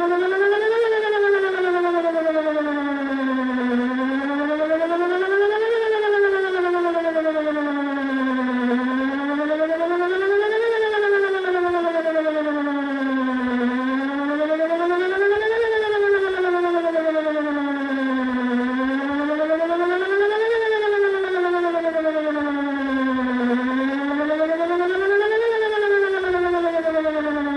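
Electronic outdoor emergency warning siren sounding a wail during a test: one loud steady tone that glides evenly up and down, peaking about every five seconds.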